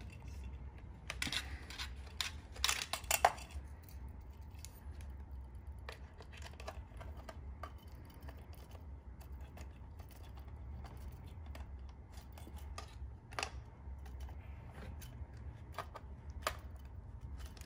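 Small clicks and scrapes of an antenna's connector wheel being screwed by hand onto the DJI Goggles V2 antenna port, a cluster of sharper clicks in the first few seconds, then a few single clicks over a low steady hum.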